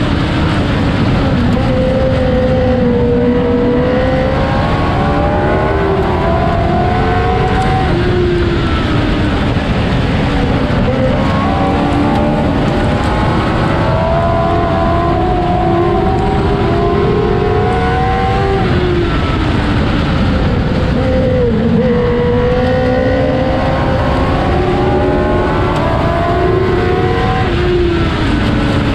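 Modlite modified race car's engine heard from inside the cockpit at racing speed. It climbs in pitch down each straightaway and drops back as the driver lifts for the corners, repeating about every six seconds.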